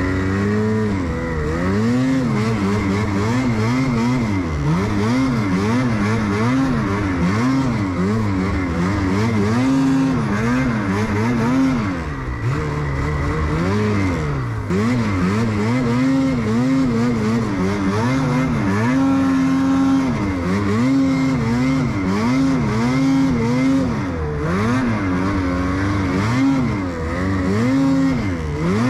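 Ski-Doo snowmobile's two-stroke engine under hard throttle, its pitch rising and falling over and over as the rider climbs out of a drainage.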